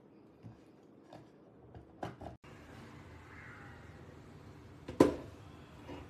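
Light clicks and taps of a plastic pump-top soap dispenser box being handled, then a single sharp plastic knock about five seconds in, the loudest sound.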